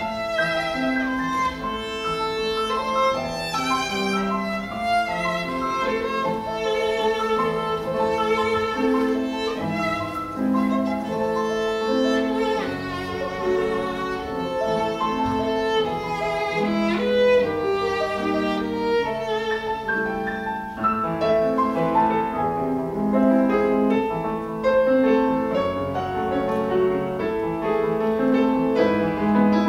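Violin and grand piano playing a classical duo piece, the violin carrying the melody with vibrato on its held notes over the piano's accompaniment.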